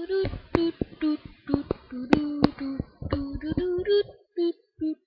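A high voice, like a child's, singing a short tune in brief held notes, with sharp clicks among them.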